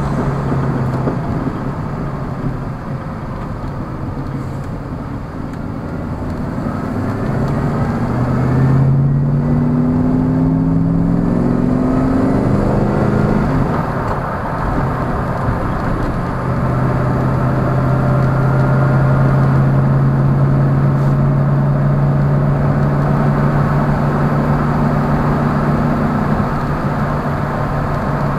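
A 1988 Lamborghini Countach replica's engine, heard from inside the cabin on a test drive after its injector seals were repaired. About a quarter of the way in it pulls up through the gears: the revs rise and drop back several times. It then settles to a steady cruise, with road noise under it throughout.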